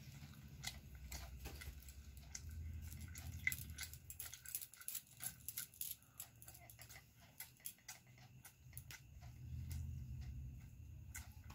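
Faint eating sounds: fingers picking through pasta on a plastic plate, with many small clicks and soft chewing.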